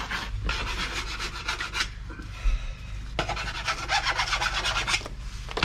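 Hand file rasping in quick back-and-forth strokes across the cut end of an orange PVC underground drain pipe, smoothing and chamfering it so it slides into a push-fit socket. The strokes stop about two seconds in and resume a second later.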